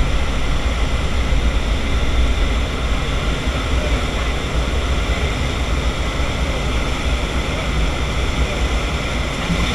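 Steady, loud drone of a skydiving jump plane's engine and propeller, heard from inside the crowded cabin in flight.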